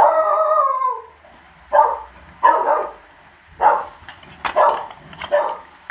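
A dog gives one long howl that falls in pitch, then barks about five times, roughly one bark a second.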